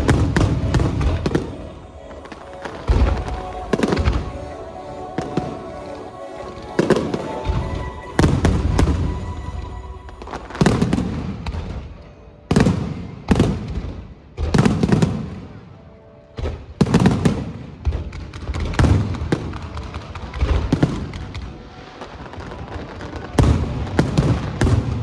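Aerial fireworks shells bursting overhead in a long run of loud booms, about one every second or so, each trailing off in a rumbling, crackling echo.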